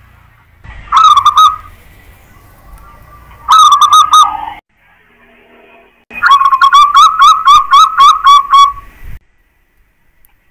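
Zebra dove (perkutut) cooing loudly in three phrases: two short ones, then a longer run of about a dozen quick, evenly spaced notes.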